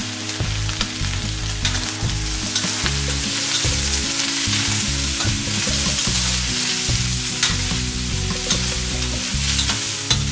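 Chopped celery and garlic sizzling in hot oil in a wok as they are stir-fried, with a steady hiss and frequent short clicks and scrapes of the utensil against the pan.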